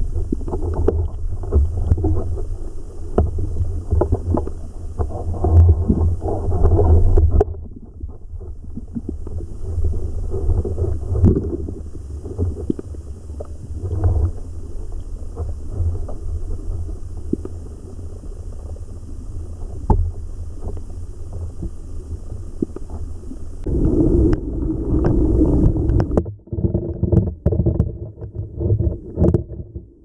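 Mountain stream water heard from a camera held underwater: a steady low rumble with scattered clicks and knocks. Near the end it turns louder and busier where falling water drives bubbles into the pool.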